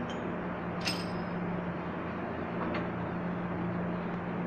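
A metal part clinks once against another about a second in, ringing briefly, with a fainter tick later, over a steady workshop hum.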